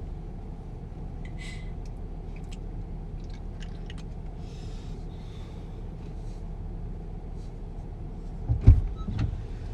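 Steady low rumble with scattered faint clicks and rustles, then a loud thump followed by a couple of smaller knocks near the end.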